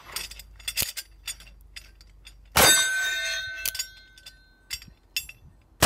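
Uberti 1873 Cattleman II .357 Magnum single-action revolver firing a hot load, a sharp shot about two and a half seconds in, answered by a hanging steel target clanging and ringing on for about a second and a half. A few faint clicks come before it, and a second shot lands right at the end.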